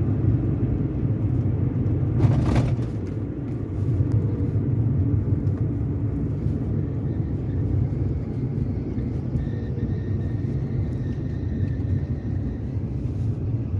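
Car being driven, with steady low road and tyre rumble and a knocking clunk from the suspension about two seconds in, the intermittent 'tabqbiq' knock the driver is trying to trace.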